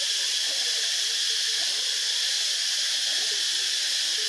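Steady high-pitched hiss at an even level, with faint wavering sounds underneath it.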